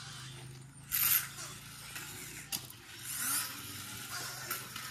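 Steady low mechanical whir with a fine ratchet-like clicking texture. Brief noisy rushes come about a second in and again around three seconds, with a sharp click between them.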